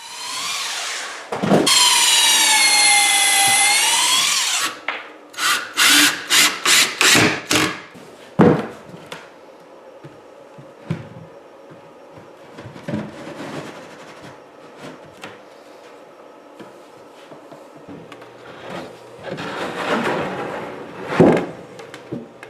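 Power drill driving drywall screws into wood: a long run of the motor whose pitch dips and rises again, then a quick series of short trigger bursts, a sharp knock, and another run near the end.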